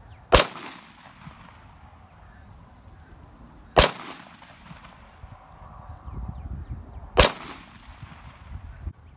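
Three pistol shots, about three and a half seconds apart, each followed by a brief echo.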